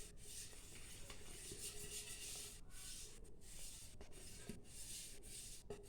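Faint rubbing as oil is spread over the inside of a cake tin, with a few light taps.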